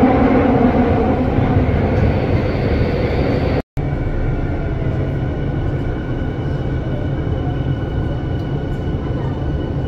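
Commuter train running, a steady rumble heard from inside the carriage. The sound cuts out for an instant about four seconds in, and faint steady high tones sit over the rumble after that.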